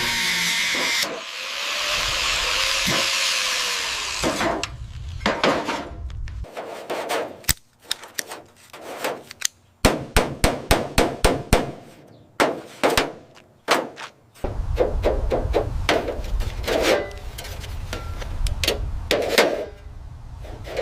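Metal-working tools in a car restoration. A power tool runs with a loud hissing grind for about the first four seconds. A series of sharp hammer-like strikes follows, coming several a second in the middle, and keeps going over a low steady rumble near the end.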